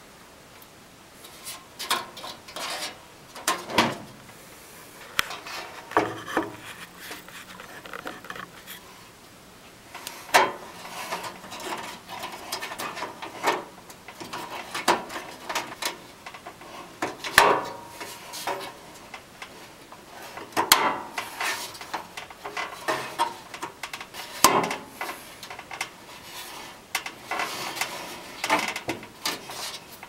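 Stamped sheet-metal motherboard I/O shield being pressed and snapped into a computer case's rear opening: irregular metallic clicks, snaps and short scraping rattles as it is worked into place.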